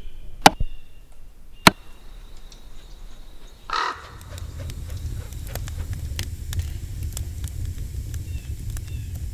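Two sharp knocks about half a second and a second and a half in, then a single crow caw near the four-second mark. After the caw comes a steady low rumble with scattered faint clicks.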